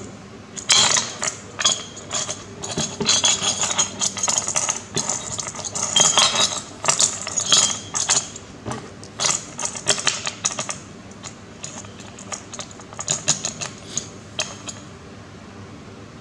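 Small metal parts clinking and rattling as they are handled: a quick run of sharp clicks and clatter that thins out over the last few seconds.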